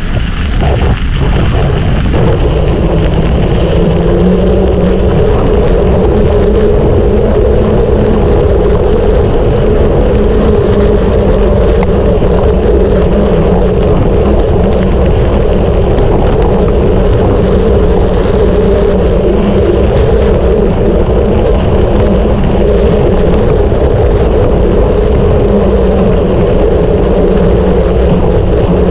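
Mountain bike rolling steadily on spiked tyres: a loud, continuous hum and low rumble, with wind on the microphone.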